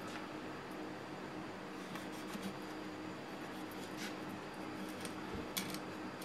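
Knife filleting a smooth flutemouth on a wooden cutting board: light scraping and rubbing as the blade works along the fish, with a few faint ticks of knife against board or bone.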